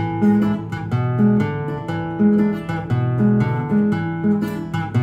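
Nylon-string classical guitar playing a repeating E7 riff: a bass line of E, B, D, E under plucked chords, the pattern coming round about once a second.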